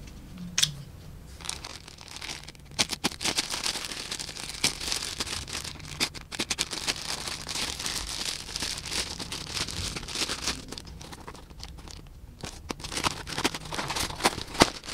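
Plastic courier mailer bag crinkling and rustling as it is handled and opened, with many sharp crackles; near the end, the cardboard box inside being pulled open, its flaps and plastic-wrapped contents rustling.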